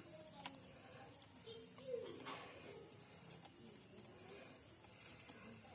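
Faint, steady insect chirring with an even pulse, joined by a few soft clicks.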